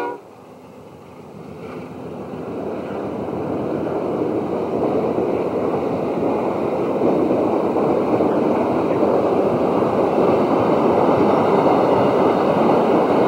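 Amtrak passenger cars rushing past at high speed: a steady rushing noise of wheels on rail and moving air, swelling louder over the first several seconds and then holding.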